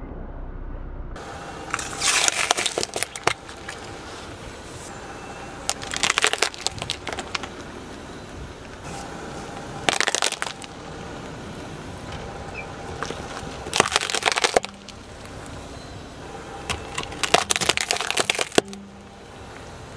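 Car tyre rolling over small ornamental gourds on asphalt and crushing them: five crackling crunches a few seconds apart, over a low steady background.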